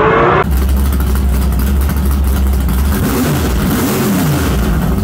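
A drag car accelerating hard down the strip, its engine pitch rising, cut off abruptly about half a second in. An intro sound effect takes over: a deep steady rumble, then engine-like revs rising and falling near the end.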